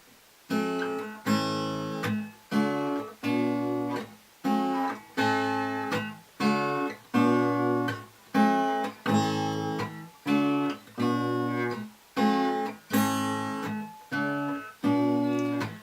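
Acoustic guitar strumming chords in a steady rhythm, each chord cut short before the next, about three every two seconds, as the instrumental intro to a song.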